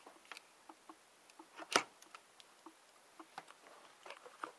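Faint, irregular small clicks and taps, one sharper click just under two seconds in: handling noise as the camera is moved about by hand.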